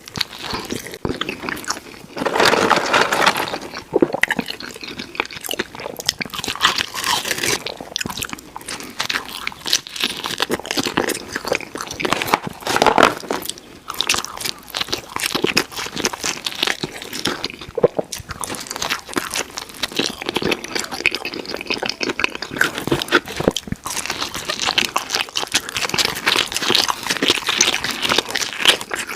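Close-miked eating of pizza: bites and chewing, a dense run of small crackly mouth clicks with louder stretches throughout.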